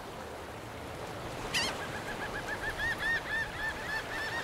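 Steady wash of sea and wind noise. About a second and a half in, a bird gives one sharp falling note and then a fast run of short, repeated calls, about five a second.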